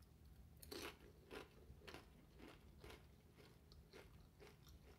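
Faint crunching of nacho cheese Dorito tortilla chips loaded with nacho toppings, being bitten and chewed, about two crunches a second, growing softer after about three seconds.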